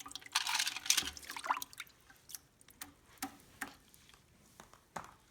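Water sloshing and scraping in a bucket as a herring is scaled under water with a fish scaler, for about the first second and a half. Then scattered drips and small clicks.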